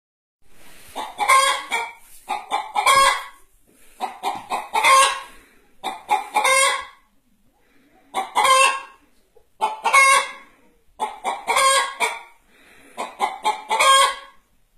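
A hen cackling (the Turkish 'gıt gıt gıdak'): about eight bursts of quick, loud clucks, one every second and a half or so.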